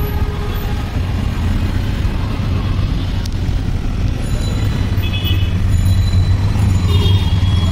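Steady low drone of road traffic, a vehicle engine running close by, holding even throughout.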